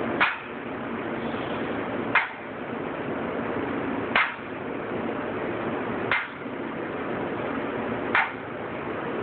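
Loaded barbell with bumper plates clanking once per repetition, five sharp metallic clinks about two seconds apart, over a steady background hiss.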